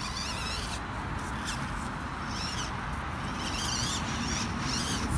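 A bird singing short warbling phrases, repeated several times, over a steady background hiss.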